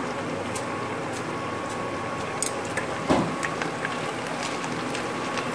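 Batter-coated boneless chicken thighs frying in hot oil in a pan: a steady sizzle with scattered small pops and crackles, and a single knock about three seconds in.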